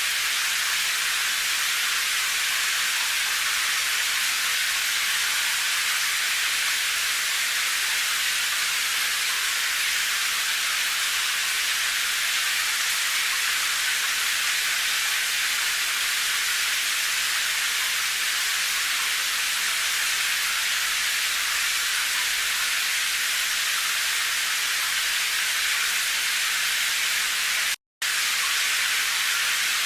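Steady rain falling, an even high hiss with little low rumble and no separate drops standing out. It cuts out completely for a split second near the end.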